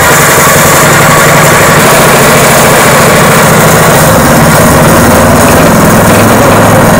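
Brand-new ZS170F Honda GX-clone single-cylinder four-stroke small engine running steadily on its first run after its first start.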